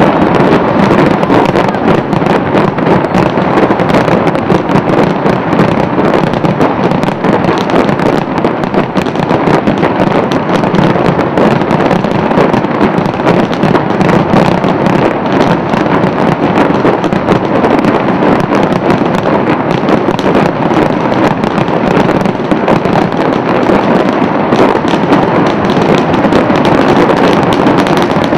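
Aerial fireworks display in full barrage: a dense, unbroken stream of bursts, bangs and crackling with no pause.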